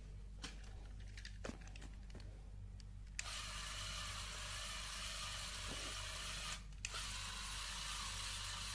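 A few clicks of Lego Technic parts being handled, then about three seconds in a Lego Technic motor starts and spins its plastic gear train with a steady, mostly high-pitched whir. It cuts out briefly about two-thirds of the way through and starts again.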